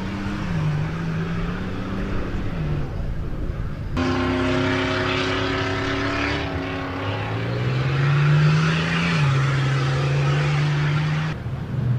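Off-road competition truck engines revving and running hard, the pitch rising and falling with the throttle. The sound changes abruptly about four seconds in and again near the end, as one clip cuts to the next.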